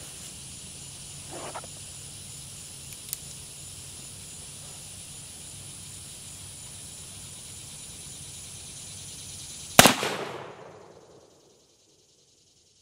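A single shot from a Pietta 1858 Remington .44 black powder revolver, loaded with 3F Pyrodex and a lead ball, about ten seconds in, ringing off over a second or so.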